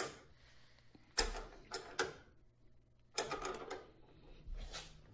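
A small combination wrench clicking and scraping on a nut as it is lifted off and re-seated for quarter turns, tightening the expanding anchor of a tailgate assist shock. Sharp metal clicks come in small groups, about five times.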